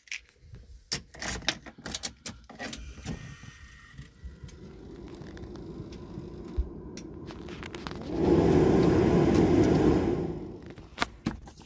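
Clicks, knocks and rattles as a Saab 9000 dashboard computer display unit is handled and plugged into its connector in the dash. About eight seconds in, a loud steady noise starts, runs for about two seconds and stops suddenly.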